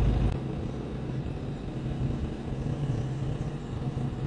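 Cat 312 excavator's diesel engine running steadily after being started, with a heavy low rumble that drops away about a third of a second in.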